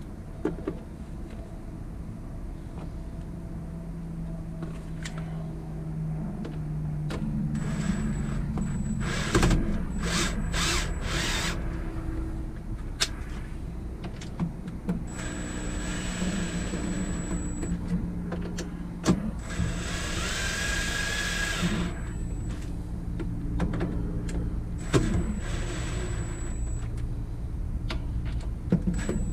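Power drill driving stainless steel screws, running in several spells with short pauses and clicks between them.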